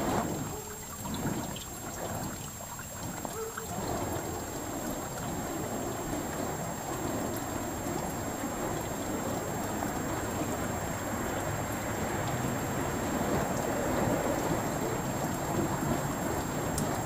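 Burning fire poi whooshing as they are swung, about one whoosh a second for the first few seconds. A steady rushing noise then takes over.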